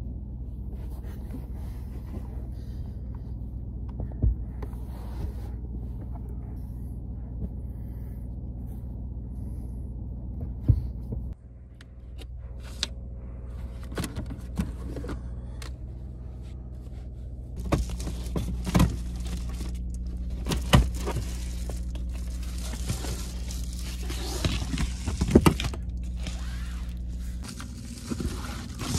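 Steady low hum of a car's idling engine and heater fan heard inside the cabin, with scattered clicks, knocks and rustles of things being handled. The hum drops and shifts about a third of the way in and grows louder again past the middle.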